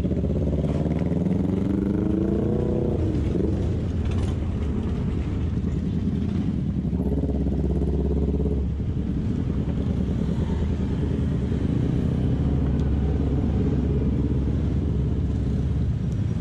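Vespa GTS scooter's single-cylinder engine pulling away, its pitch rising over the first three seconds. It then runs steadily in traffic under a heavy low rumble, with other motorcycles around it.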